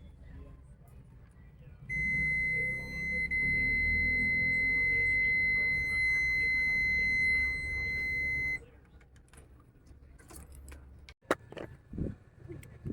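Multimeter continuity beeper sounding one steady high-pitched beep for about seven seconds, starting about two seconds in, which means the test probes are across an unbroken connection. A few sharp clicks follow near the end.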